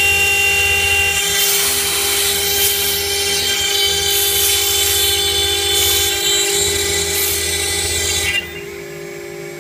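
CNC router spindle running with a steady whine as its bit cuts through 5 mm aluminium composite panel, with a loud hissing cutting noise. About eight seconds in the cutting noise drops away, leaving the spindle's whine.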